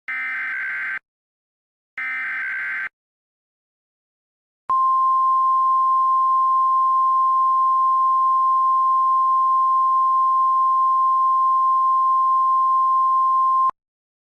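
Emergency Alert System alert opening: two one-second bursts of SAME header data tones a second apart, the last of a set of three. After a short gap comes a single steady alert tone just above 1 kHz, held for about nine seconds before it cuts off.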